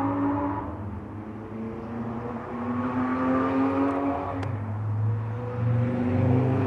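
An engine running nearby, its note rising slowly in pitch in long sweeps that drop back and climb again every two or three seconds, over a low steady hum. It is loud enough to interrupt talking and is called really annoying.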